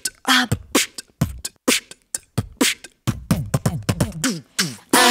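Beatboxing: a rhythmic vocal beat of kick- and snare-like hits, with a run of short falling bass sounds in the last couple of seconds. A held a cappella chord of several voices comes in right at the end.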